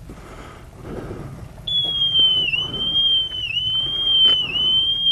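Motorcycle alarm-immobiliser on a Triumph Speed Triple sounding: a steady high electronic tone that dips briefly in pitch about once a second, starting about two seconds in. The alarm is keeping the bike from starting, which a local puts down to interference from a nearby radio mast. Before it comes quieter shuffling as the bike is pushed.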